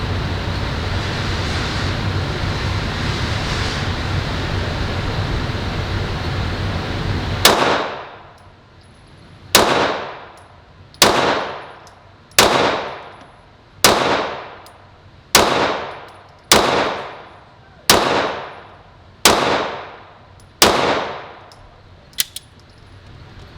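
Ten slow, deliberate pistol shots from a Glock, spaced about one and a half seconds apart, each ringing out with a long echoing tail. A steady rushing noise runs for about the first seven seconds, before the shooting begins, and a small double click comes just after the last shot.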